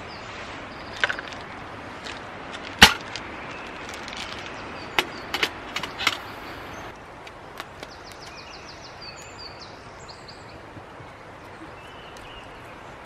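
Knocks and clinks of a small camp kettle being handled and set onto a Trangia spirit stove. The loudest knock comes a little under three seconds in, followed by a few more in quick succession around five to six seconds in.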